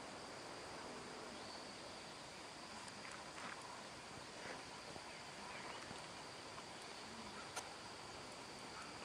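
Faint outdoor ambience: a steady hiss with a thin, high steady tone, a few faint short chirps in the middle, and a single sharp click near the end.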